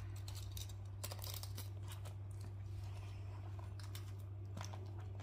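Faint handling of a clear plastic ring binder: plastic pages and cover shifting, with a few light clicks about a second in and twice near the end, over a steady low hum.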